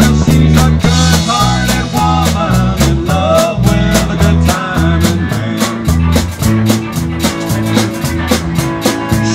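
Live rock band playing an instrumental passage: drum kit keeping a steady beat with regular cymbal hits, a Rocklin Surge electric bass carrying a moving bass line, and an electric guitar playing lead lines with bent notes.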